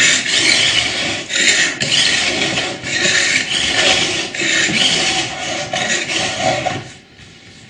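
Second-cut metal file in an edge guide rasping along a ski's steel side edge in repeated long strokes, sharpening the edge angle. The filing stops shortly before the end.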